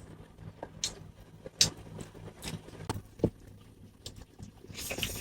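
Eating sounds from a rice-and-curry meal: chewing, with scattered sharp clicks and taps of food and fingers against a plate, the loudest about one and a half seconds in.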